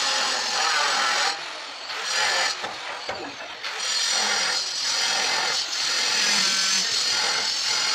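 Handheld electric power tool running with a steady, high-pitched noise, easing off about a second in and running full again from about three and a half seconds in.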